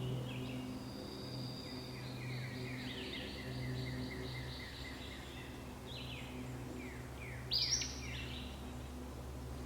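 Birds singing: a run of quick repeated chirps, then a louder cluster of falling notes about three-quarters of the way through, over a steady low hum.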